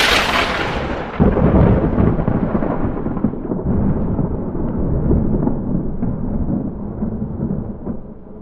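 Thunder: the tail of a sharp crack rolls into a deep rumble, which swells again about a second in and then slowly dies away.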